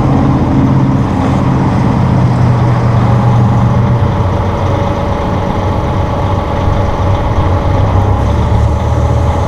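Massey Ferguson 1742 compact tractor's diesel engine running steadily during backhoe operation, its note dropping a little about halfway through.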